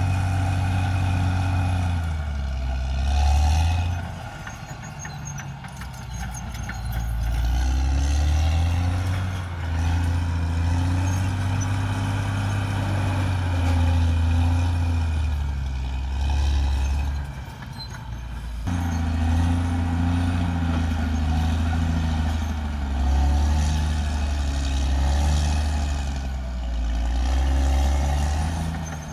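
Caterpillar D6R XL bulldozer's diesel engine working under changing load, its low note shifting in pitch as it pulls. It eases off twice, about four seconds in and again around seventeen seconds, before pulling up again.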